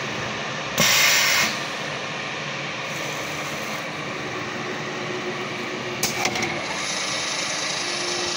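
CNC-4040 metal milling machine during an automatic tool change. A short, loud hiss of compressed air comes about a second in, from the pneumatic tool release at the spindle over the tool carousel. The machine then runs on steadily as the head travels, with a few clicks about six seconds in.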